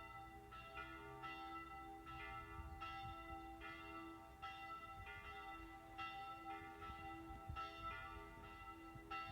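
Church bells ringing as a call to prayer, struck about twice a second with each stroke ringing on into the next. A low note hums on steadily beneath the strokes.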